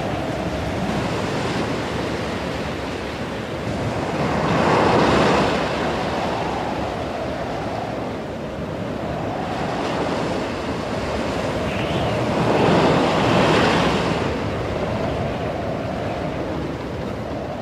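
Stormy sea: wind and waves rushing steadily, swelling up twice.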